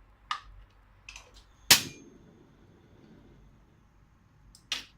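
Metal kitchenware clanking: a few sharp knocks, the loudest just under two seconds in, ringing briefly like struck metal, and one more near the end.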